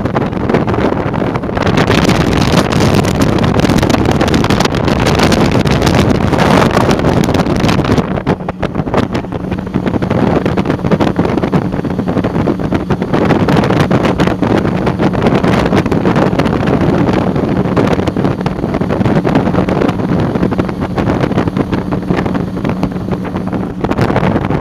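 Motorboat running fast, its engine and the rush of water and wind blending into a loud steady noise, with wind buffeting the microphone. A steady engine note stands out from about a third of the way in.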